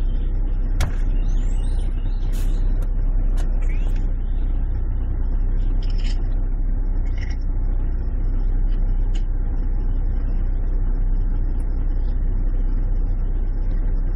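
Steady low rumble of a car engine idling, heard from inside the car.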